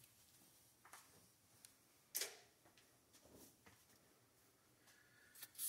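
Near silence broken by a few faint clicks and taps, the loudest about two seconds in: small parts being set down and put away on a workbench.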